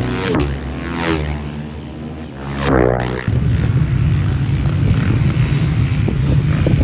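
Engine revving, its pitch swinging down and back up several times, then a steady loud rumble from about three seconds in.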